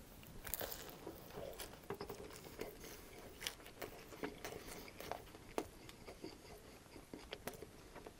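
Close-miked chewing of a mouthful of crispy panko chicken bacon wrap: faint crunching with many small, sharp, wet mouth clicks scattered throughout.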